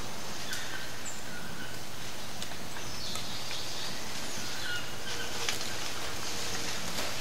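Tropical rainforest ambience: a steady hiss with short high chirping calls scattered through it and a few sharp clicks.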